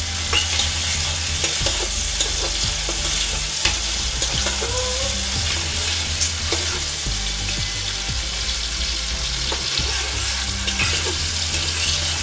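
Sliced onions sizzling in hot oil in a metal pot. A metal spoon scrapes and clicks against the pan now and then as they are stirred.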